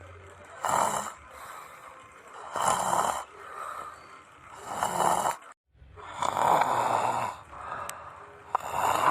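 A person snoring, a rasping snore on each breath about every two seconds, five in all, with a brief break in the sound a little past the middle.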